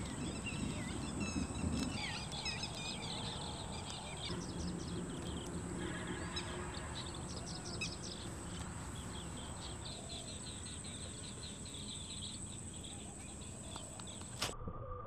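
Several birds chirping and calling in quick short notes, over a steady hiss of light rain.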